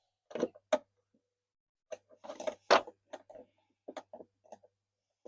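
Irregular short knocks and clicks of tools and metal fuel-pump fittings being handled and fitted, with a busier cluster about two to three seconds in.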